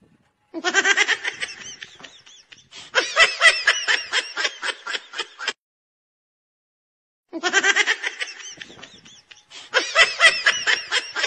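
A person's high-pitched laughter in quick ha-ha pulses, about five a second, lasting about five seconds. It stops, and after a silent pause of about two seconds the same laugh starts over, a looped laugh sound effect.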